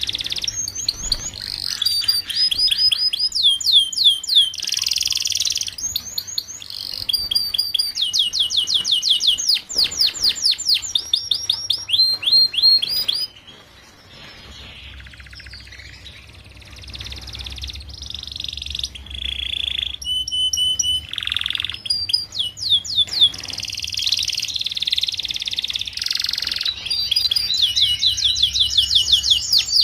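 Domestic canary singing: phrase after phrase of fast, high-pitched trills and rolls of rapidly repeated notes, which drop away briefly about 13 seconds in and then resume.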